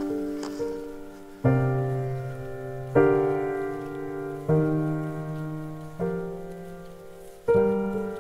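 Background piano music: slow chords struck about every one and a half seconds, each fading away before the next, with a simple melody on top.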